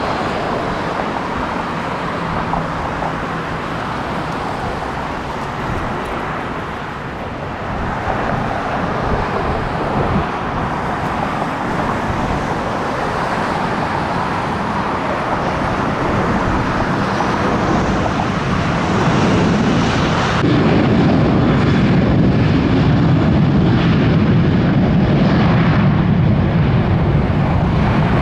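Airliner jet engines: an Airbus A320-family jet on final approach and touchdown, a steady rumble. About twenty seconds in, the sound switches abruptly to a louder, lower rumble from a Boeing 737 rolling on the runway.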